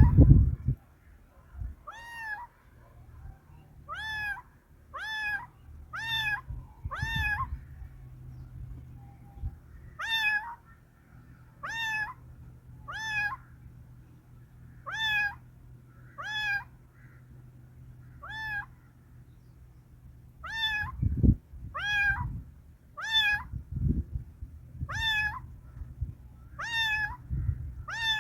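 A cat meowing over and over: about twenty short, high meows, each rising then falling in pitch, spaced roughly a second apart. A few dull low thumps fall in the second half.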